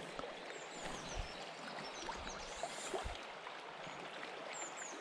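A river's current flows in a steady rush of water. Faint, short, high chirps come through it several times.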